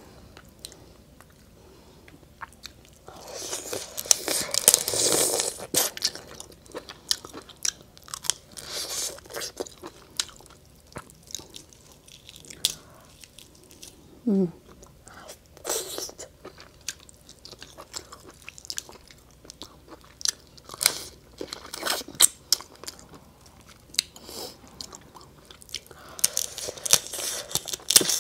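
Close-up eating sounds of cooked lobster: sharp clicks and crackling as the shell and body are picked apart by hand, with chewing and wet mouth sounds. The crackling comes in a few denser stretches, and there is a brief hum about halfway through.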